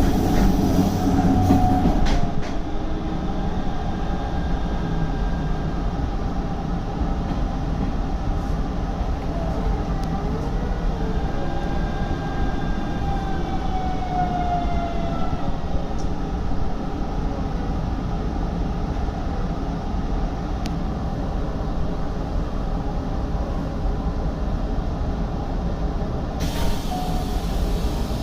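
Hanshin 5500-series commuter train running on the track, heard from inside the rear of the car: a steady rumble of wheels on rails. About midway a faint whine falls in pitch over a few seconds.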